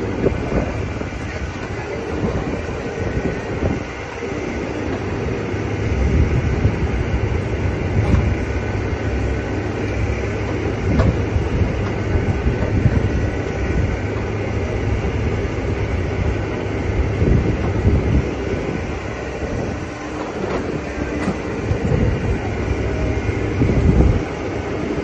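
Takeuchi excavator running under load, its engine and hydraulics making a steady low rumble that swells now and then, with scattered knocks and crunches from the demolition.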